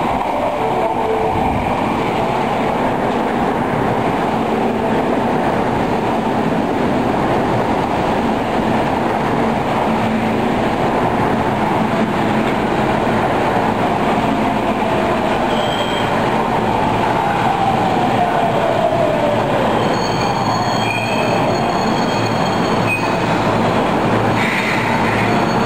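Osaka Municipal Subway train pulling into an underground station, with a loud steady rumble of wheels on rail. A whine falls in pitch as the train slows, then thin high brake squeals come near the end as it stops.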